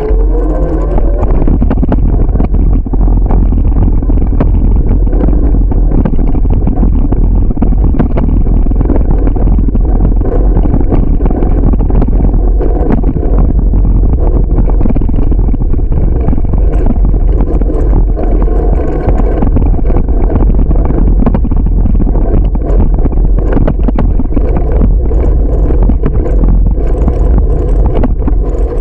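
Steady road and wind noise picked up by a camera on a moving bicycle. A heavy low rumble is peppered with frequent small rattles and clicks.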